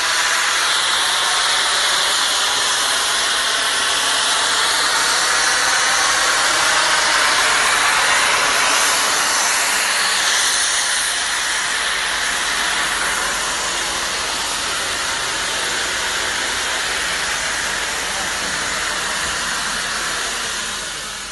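FS class 740 steam locomotive (740.293) standing with steam hissing loudly and steadily from its vents, easing slightly about halfway through and dying down at the very end.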